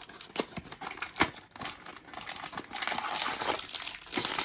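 Blind-box packaging being handled and opened: a few scattered clicks and taps, then steady crinkling of wrapping from about three seconds in.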